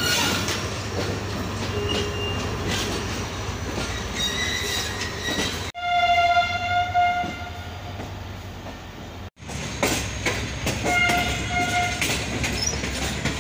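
A passenger train rolling out, heard from an open coach doorway: steady running noise with a low hum and wheel-on-rail sounds. Brief high steady tones sound twice, once about halfway and again near the end.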